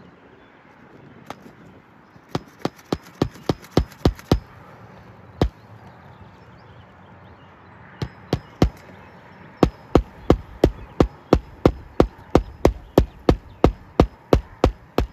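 Hammer blows on a roof during a shingle repair, struck in quick runs of about three a second with short pauses between runs.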